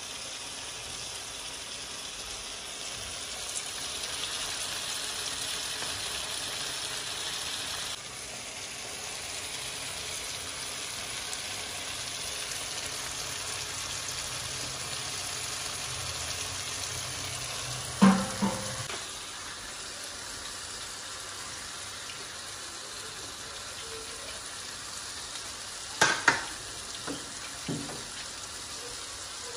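Chicken pakoras deep-frying in a karahi of hot oil: a steady sizzle and bubble. Sharp knocks come twice, once near the middle and once near the end.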